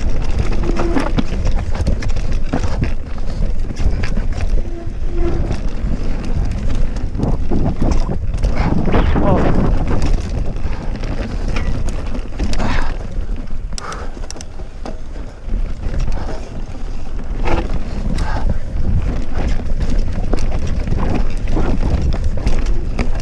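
Wind buffeting the microphone during a fast descent on a Cube Stereo full-suspension mountain bike, with tyres running over a dirt trail and the bike knocking and rattling over bumps and roots.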